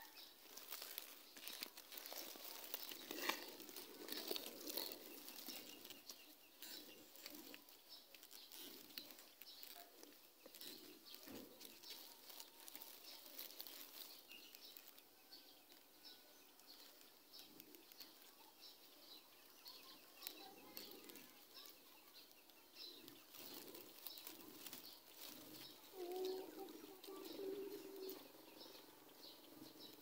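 Near quiet: faint crackling rustle of dry nest grass close to the microphone, with a few faint, distant bird chirps.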